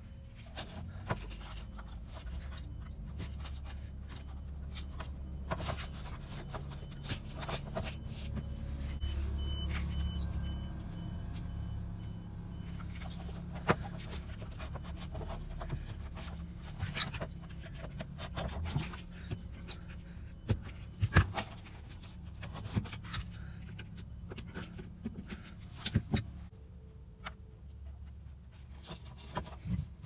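Scattered clicks and light scrapes of hands fitting and handling crimped spade connectors and wires on a refrigerator compressor control module, over a steady low hum.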